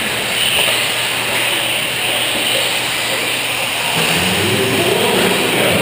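Radio-controlled 4WD short-course trucks racing on a dirt track: a steady hiss of motors and tyres on dirt. From about four seconds in, an indistinct voice joins it.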